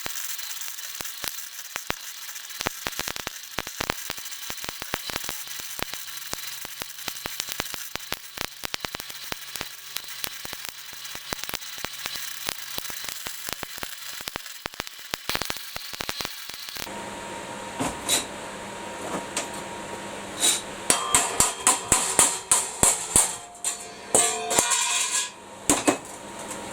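Electric welder arcing on steel, a steady dense crackle, for most of the first two-thirds; then a quick run of hammer blows on steel, several a second, loudest near the end.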